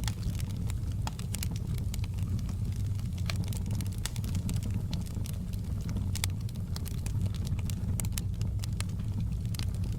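Wood fire burning in a fireplace: a steady low rumble with many sharp crackles and pops of the burning logs, scattered irregularly throughout.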